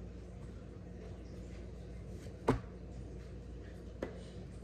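Kitchen items being handled on a granite countertop: one sharp knock about two and a half seconds in and a lighter one near the end, over a steady low hum.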